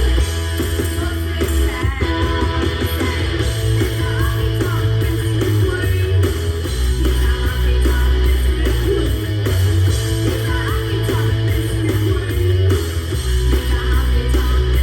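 Rock song with guitar and singing over a heavy bass line.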